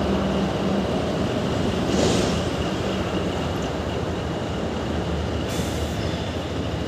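Motorcycle engine running while riding, under a steady noisy rumble; a brief hiss about two seconds in.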